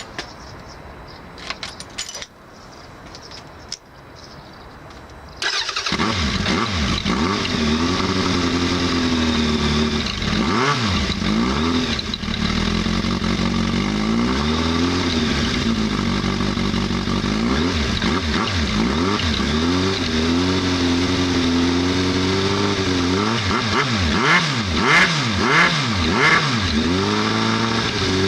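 A few clicks, then a Suzuki Bandit 1200's inline-four engine with a Black Widow full exhaust system starts about five seconds in. It idles while the throttle is blipped again and again, the revs rising and falling, with a run of quick blips near the end.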